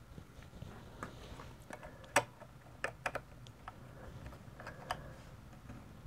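Scattered light clicks and taps of a laptop processor being handled and tried in its CPU socket, the sharpest about two seconds in, with a few more near three and five seconds.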